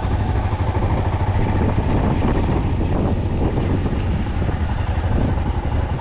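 A vehicle on the move: a steady, dense low rumble of engine and road noise.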